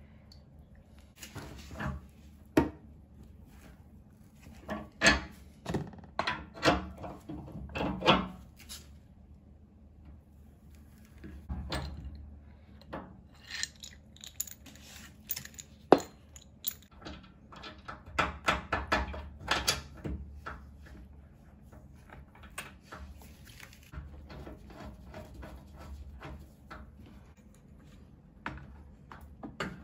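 Scattered metal clinks and knocks of a spanner working the brass compression nuts of a radiator valve on copper pipe, in short clusters, with one sharp click about sixteen seconds in.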